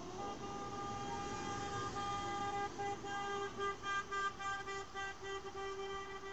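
A vehicle horn sounding from the passing convoy of tractors and trucks: one held note, then a quick run of short toots in the second half. Engines rumble underneath.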